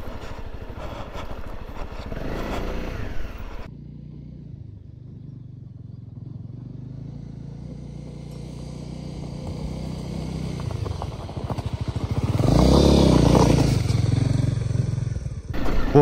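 Honda CRF250 Rally's single-cylinder engine riding a rough, rocky dirt track. First heard from on the bike; after a sudden cut a few seconds in it is heard from a distance, coming closer and growing steadily louder until it passes loudest about three quarters of the way through, then cuts back to the on-board sound as it revs up near the end.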